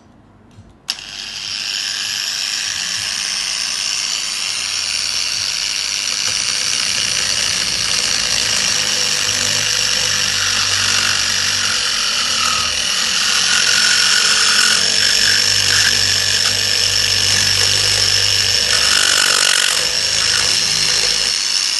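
Mini angle grinder fitted with a drill-chuck adapter and a wood rasp bit, switched on about a second in and then running steadily at full speed with a loud, high-pitched whine.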